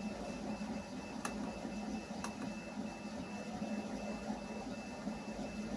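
3D printer running in the background: a steady mechanical hum with a high tone that pulses on and off about three times a second. Two short clicks come about one and two seconds in.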